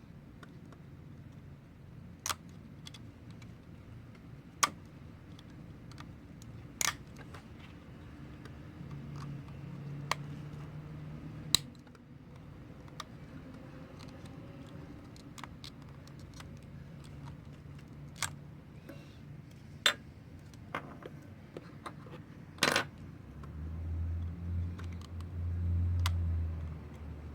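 Sharp, scattered clicks of a hobby knife's metal blade picking at a broken headphone plug lodged in an Xbox One controller's headphone jack, a click every second or two. A low rumble comes in near the end.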